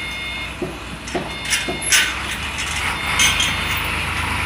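Construction-site and roadside ambience: a steady low rumble of traffic and machinery, with a few scattered sharp knocks and clatters. The loudest knock comes about two seconds in.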